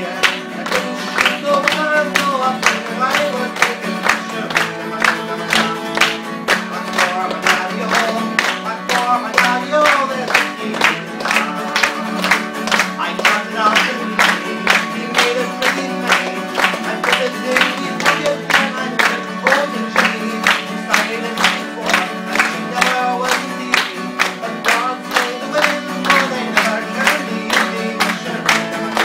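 Acoustic guitar strummed in a steady, even rhythm, with a man's voice singing over it in phrases that come and go.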